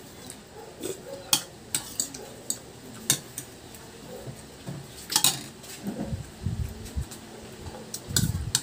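A metal spoon and fork clinking and scraping against a ceramic soup bowl while eating: irregular light clinks, the loudest about five seconds in, with a few soft low thuds later.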